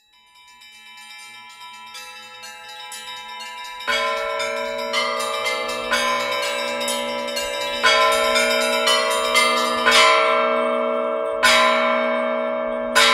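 Church bells ringing, several bells of different pitch sounding together. They fade in from silence over the first few seconds, come in louder about four seconds in, and are then struck afresh every couple of seconds, each strike ringing on.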